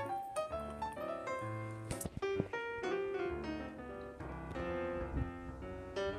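Piano music playing, a melody of notes changing several times a second.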